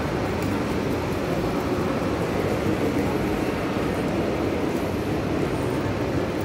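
Steady background noise of a busy main-line train station concourse, with indistinct crowd and train sound and no single event standing out.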